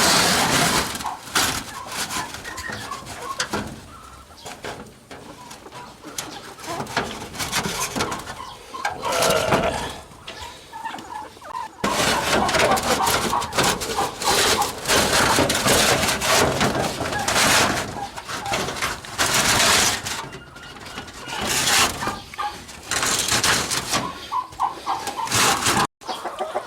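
Chickens clucking over a run of irregular scraping and rattling noises.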